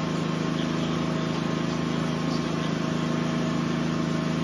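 A steady engine drone, even in pitch and level, with a fine rapid pulse.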